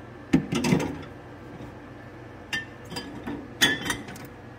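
Beer drinks in a cooler clinking and knocking against each other as they are shifted around, in two bursts of sharp knocks, some with a short ring.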